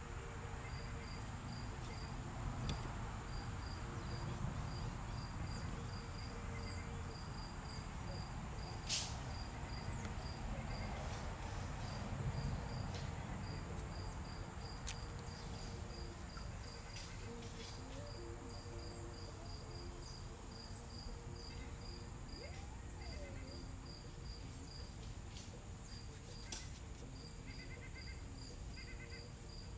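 Insects chirping outdoors in an even pulse of about four high chirps a second, over a steady high buzz. Underneath is low rumbling noise, and there are a few sharp clicks.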